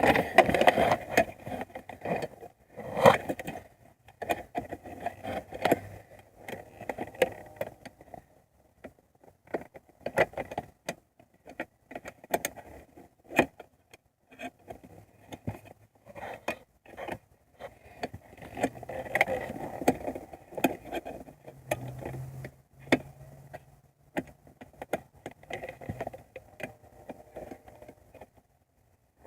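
Irregular clicks, knocks, scrapes and rattles of car parts and hand tools being handled during hands-on repair work, with a short low hum a little past the middle.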